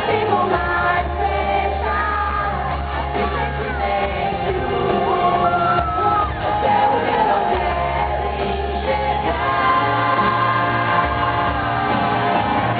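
Live pop-rock band playing and singing, with crowd voices and shouts.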